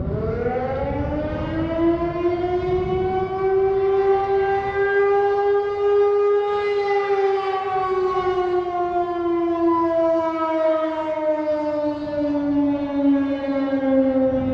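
Outdoor warning siren wailing: its tone climbs over the first few seconds, holds, then slides slowly down and begins to rise again near the end, over a low rumbling noise.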